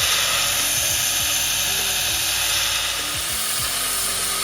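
Belt grinder running and grinding a forged steel knife blade, shaping its drop point: a steady, loud grinding hiss.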